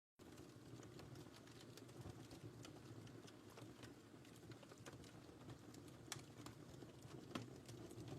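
Faint crackling wood fire: irregular small pops and snaps over a low, steady hiss of burning.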